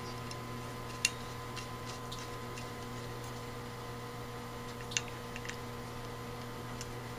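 A few light metallic clicks and ticks of a screwdriver against the Carter BBS carburetor body while the main discharge jet is being seated, the sharpest about a second in and about five seconds in, over a steady low hum.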